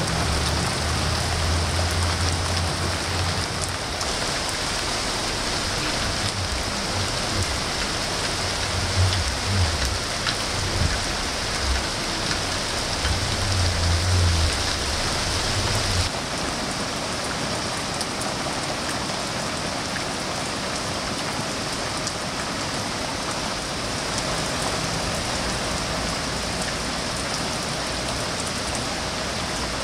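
Steady rain of a sudden shower falling on garden foliage and a wet driveway, an even hiss of drops. A low rumble comes and goes through the first half and stops about halfway through.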